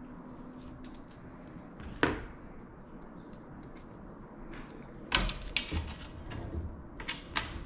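Small metal propeller-hub parts clicking and clinking as bolts and hardware are handled, with a sharper knock about two seconds in and a cluster of knocks and taps around five to six seconds in.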